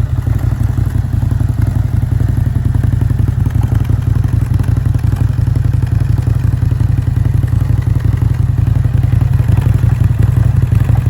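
An engine running at a steady speed with an even low pulse and some clatter.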